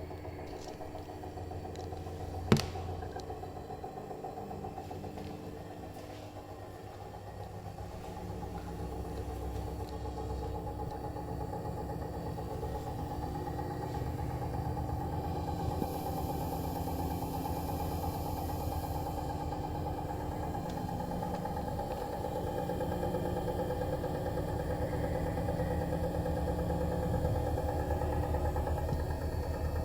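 Bosch Serie 4 washing machine spinning, a steady mechanical drone with a loud strange noise from the drum and spindle, growing slowly louder; the owner takes it for a fault, though Bosch calls it normal. One sharp click about two and a half seconds in.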